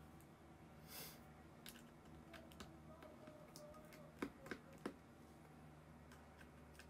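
Faint clicks and taps of a small screwdriver tip against the opened iPhone 7's internal metal parts, with a short brushing sound about a second in and three sharper clicks in quick succession about four seconds in.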